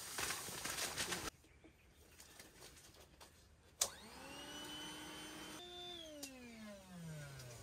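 Vinyl air mattress rustling as it is unfolded, then an electric air pump clicks on, spins up to a steady hum while inflating the mattress, and winds down in pitch as it is switched off.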